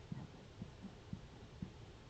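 Quiet, short low gulps from a man swallowing air to burp it back up, coming about every half second.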